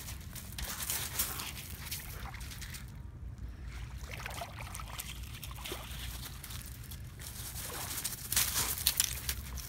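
Sea water sloshing and trickling, with a louder run of splashes near the end.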